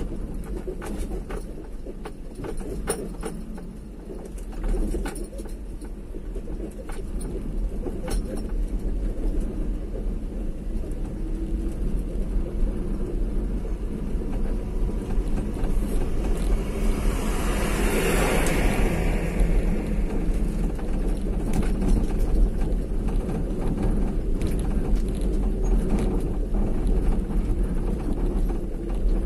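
Vehicle driving along a road: a steady low rumble with road noise. A louder rushing sound swells and fades about eighteen seconds in, with scattered clicks earlier on.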